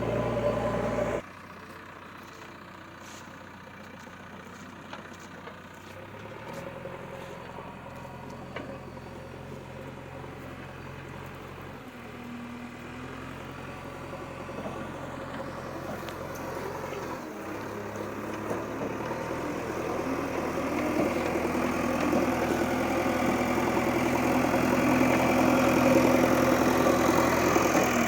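A vehicle engine running steadily. It grows gradually louder through the second half, as if the machine is coming closer or working harder.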